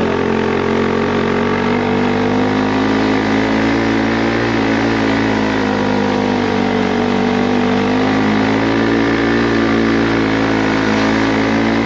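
Motorbike engine running at a steady speed, its pitch drifting slightly up and down.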